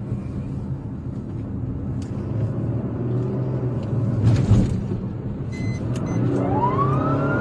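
Steady low drone of engine and road noise inside a moving police patrol car, with a knock about four seconds in. Near the end the car's siren starts to wail, rising in pitch.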